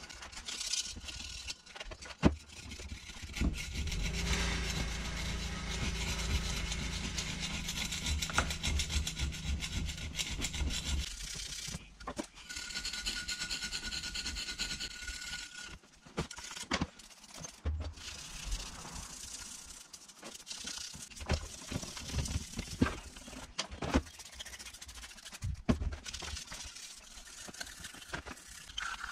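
A screwdriver tip scraping baked-on grime off a Yamaha RXS 115's aluminium engine casing in irregular rasping strokes, with sharp little clicks of metal on metal. A low steady hum runs beneath the scraping for several seconds in the first half.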